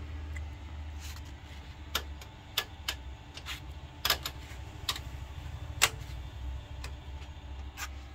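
About ten sharp clicks at irregular spacing from the front-panel switches of an Akai AM-U03 amplifier being pressed and flicked. The clicks sit over a steady low hum.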